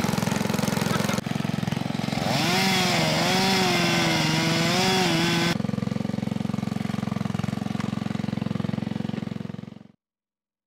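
Engine-driven hydraulic log splitter running steadily, with a fast even pulse. For a few seconds from about two seconds in, a wavering whine rises over the engine as the wedge forces its way through a log. The engine sound cuts off suddenly near the end.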